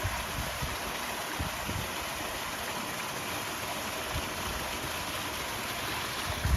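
A small hillside waterfall rushing steadily, with wind buffeting the microphone now and then as a low rumble.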